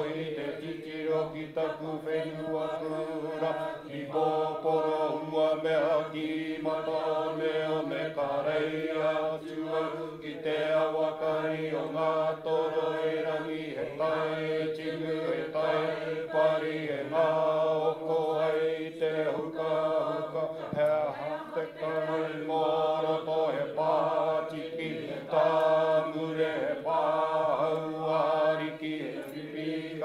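Chanted vocal music: voices singing in a chant over a steady low drone.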